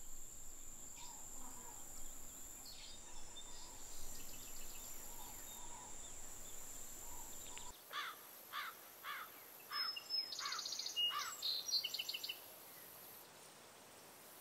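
Birds calling: a run of short falling chirps starting about halfway through, followed by a brief high song of rapid notes. Before them, a steady high-pitched whine with faint chirps.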